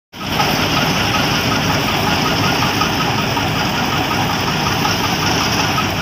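Hind 999 combine harvester running close by while cutting paddy: a loud, steady drone of engine and threshing machinery, with a faint fast regular ticking in it.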